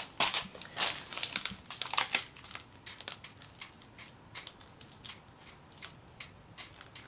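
Irregular small clicks and crinkling handling noise of hands working a film camera that will not fire, thickest in the first two seconds and thinning out after.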